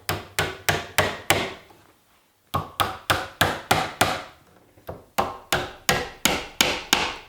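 Hammer tapping finishing nails into wood to tack a router jig in place: three quick runs of sharp strikes, about three a second, with short pauses between them.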